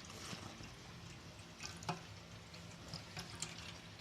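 Strained oregano juice dripping and trickling faintly, with a few light taps from the strainer or glass.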